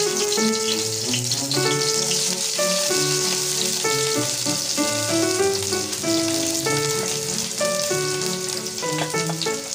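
Background music, a melody of held notes that change pitch every half second or so, over the steady hiss and crackle of chopped green onions sizzling in a frying pan.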